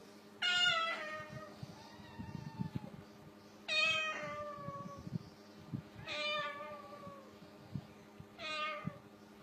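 A cockatoo mimicking a cat's meow: four drawn-out meows a couple of seconds apart, each falling in pitch.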